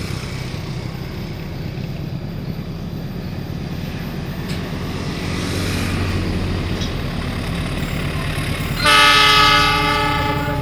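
An approaching diesel locomotive's engine rumbles steadily and grows louder. About nine seconds in, its horn sounds one long blast of several tones together, the loudest thing here, which is a horn greeting to trainspotters at the trackside.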